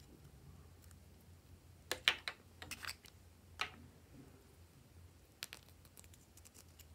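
Small plastic makeup jar and plastic spatula clicking and tapping as they are handled: a cluster of sharp clicks about two to three seconds in, one more click soon after, and a few lighter ticks later on, over a faint low hum.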